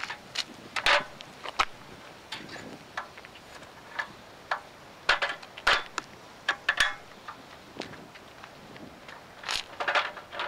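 A small aluminium stepladder being handled and set down: a series of separate light clanks, clicks and scrapes, with a cluster near the end.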